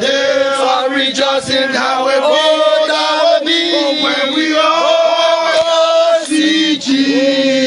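A group of men singing a chant-like song together as they carry the casket, with long held notes.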